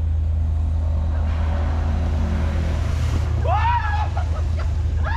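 Vehicle engine running with a steady low drone while driving an off-road trail. A rushing hiss rises and passes over about two seconds in the middle. A person's voice calls out briefly near the end.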